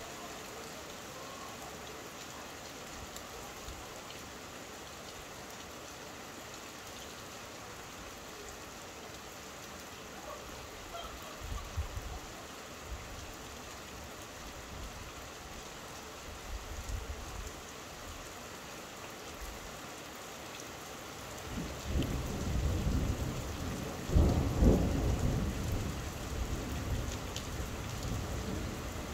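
Steady rain during a thunderstorm, with two brief low rumbles of thunder before halfway. About three quarters of the way in, a long, loud peal of thunder rolls in, peaking a couple of seconds after it starts and still rumbling at the close.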